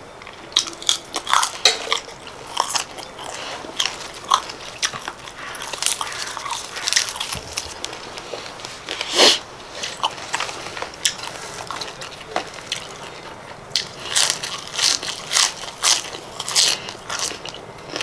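Close-up crunching of a person biting and chewing crisp raw vegetables: a run of sharp, crackly crunches, with one louder bite about nine seconds in.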